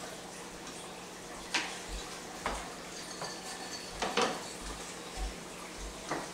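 Kitchen clatter during food prep: scattered knocks and clinks of utensils and containers being handled, roughly a second apart, over a steady low hum.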